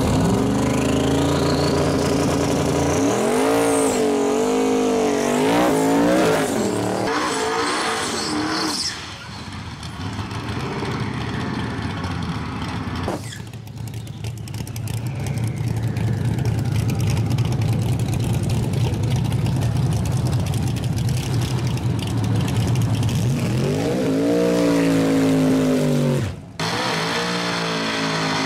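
Turbocharged V8 pickup truck revving hard, its pitch swooping up and down through a burnout, with a high whine rising in the first seconds. The engine then settles to a steady low running note before revving up again and cutting off sharply near the end.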